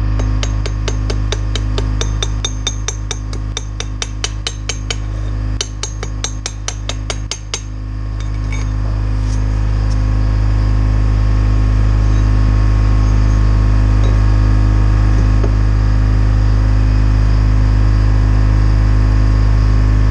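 Chipping hammer tapping slag off a fresh stick weld, about four sharp metal strikes a second for the first seven seconds or so. Underneath, the Lincoln welder's Detroit diesel engine drones steadily, and it is heard alone and a little louder for the rest of the time.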